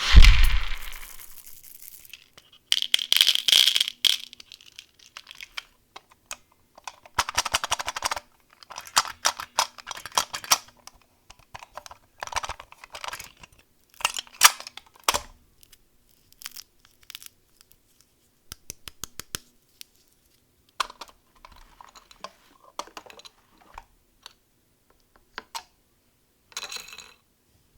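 Candy packaging being handled and opened by hand: plastic crinkling and tearing, with many small clicks and taps. There is a loud thump at the very start.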